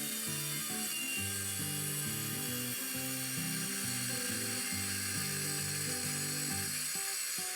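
Background music: a line of low notes changing every fraction of a second, over a steady hiss.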